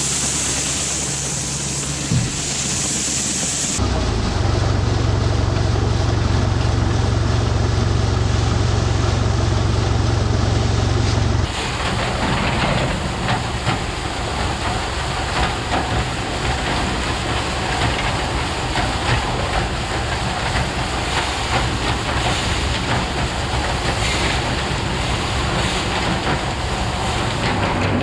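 Farm machinery engines running steadily, in three cut-together stretches: a hissing stretch, then a heavy low engine hum, then a rattling, busier machine noise.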